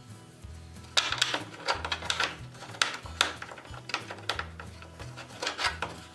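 Background music with steady bass notes. Over it, from about a second in, come irregular sharp clicks and taps of metal seat irons being handled and fitted against a wooden seat riser.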